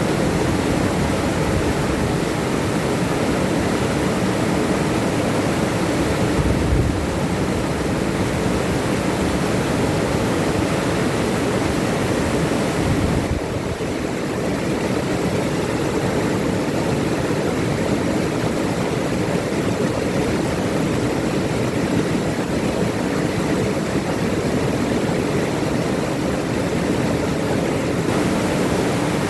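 River water rushing and splashing over rocks in a steady, full roar of noise.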